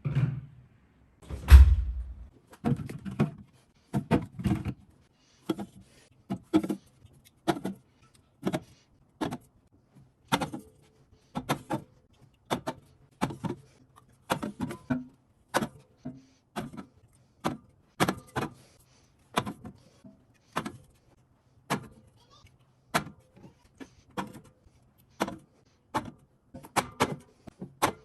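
Groceries and containers being set down and packed into a refrigerator: a steady run of short knocks and clatters, with a heavier thump about a second and a half in.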